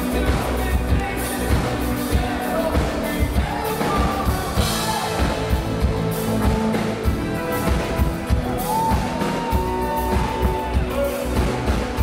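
Live synth-pop band playing, with a steady drum beat under synthesizer keyboards.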